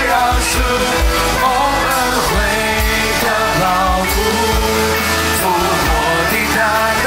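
Mandarin worship song: a voice singing the melody over a band with a steady drum beat and cymbals.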